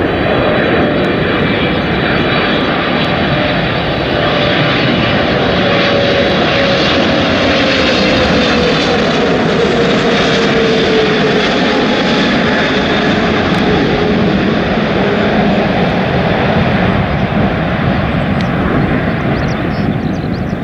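Air France Boeing 777's GE90 turbofan engines growling as the jet passes low on final approach, with one engine tone sliding down in pitch over about ten seconds. Wind buffets the microphone.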